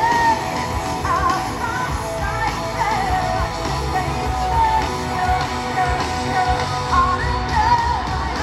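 A rock band playing live through a large concert PA, with melodic singing over heavy bass and drums, heard from within the audience.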